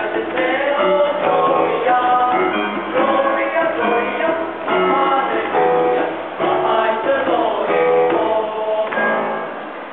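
Children's choir singing, many voices together; the singing fades out near the end.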